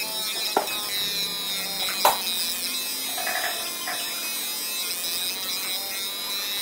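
Fiber laser marking machine frosting a mirror: a steady high-pitched buzz from the galvo scan head, with two sharp clicks about half a second and two seconds in.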